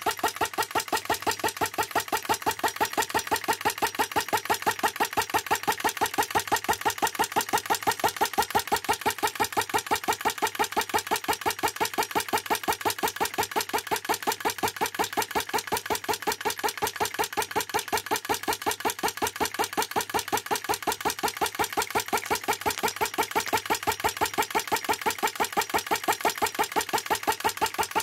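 Model flame gulper (flame-licker vacuum) engine running steadily, an even beat of sharp clicks about four or five times a second.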